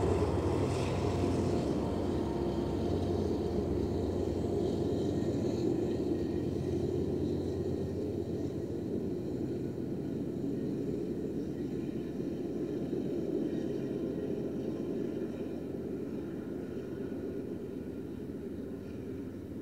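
Loaded coal trains climbing a grade at slow speed: a steady low rumble of heavy hopper cars rolling on the rails, with the hum of diesel locomotives working, gradually fading.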